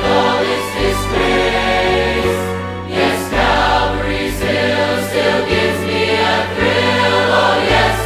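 Gospel song: a choir of voices singing over instrumental backing with a bass line that steps to a new note about every second.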